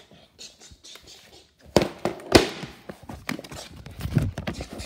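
A run of irregular sharp knocks, clicks and bumps, the two loudest about two seconds in, as a handheld phone is moved about and knocked against things.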